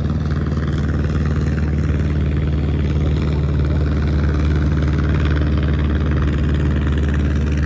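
A loud, steady engine drone: a low, even hum that holds unchanged throughout.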